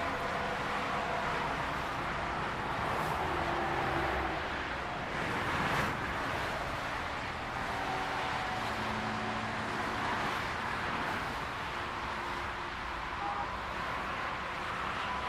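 Steady highway traffic noise: a continuous wash of tyres and engines on the road, with vehicles passing, one swelling by about six seconds in.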